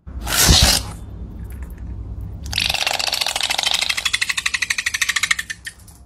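A paint-filled balloon pierced with a skewer: a short burst of noise with a low thump, then from about two and a half seconds in a rapid, even sputtering buzz for about three seconds as paint spurts out of the hole.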